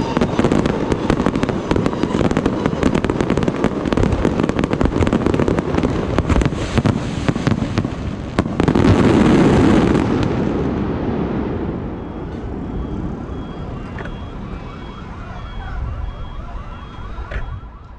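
Aerial fireworks shells bursting in rapid succession with dense crackling, swelling to a loud volley about nine seconds in and then dying away. In the last few seconds a repeating electronic beep sounds over the fading crackle.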